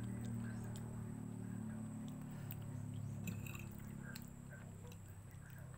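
Soft chewing and small clinks of a fork against a plate while twirling spaghetti, over a low steady hum that eases off after about four seconds.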